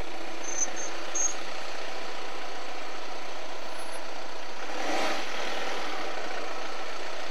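Volkswagen Transporter van's engine running as the van rolls slowly past, with two brief high squeaks in the first second or so. The sound swells briefly about five seconds in as the van comes closest.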